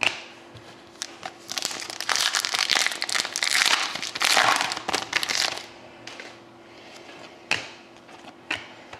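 Foil trading-card pack wrapper crinkling as it is torn open and handled, loudest for about four seconds starting a second and a half in. Near the end, a few light clicks as the cards are handled.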